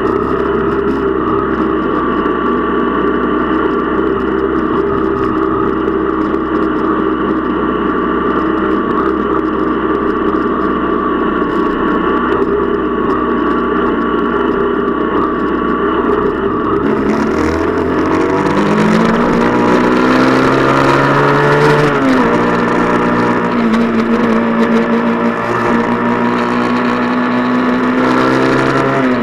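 125 cc motorcycle engine running at steady low revs, then revving up as the bike accelerates a little past halfway. The pitch drops sharply at a gear change and climbs again, with wind rushing on the microphone once it speeds up.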